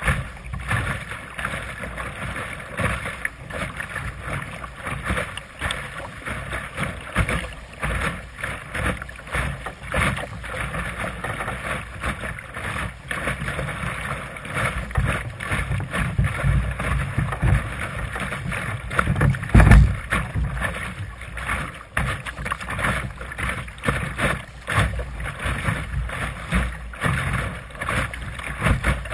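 Water slapping and rushing along the hull of a Sunfish sailing dinghy under way, with wind buffeting the deck-mounted microphone. One stronger low bump comes about two-thirds of the way in.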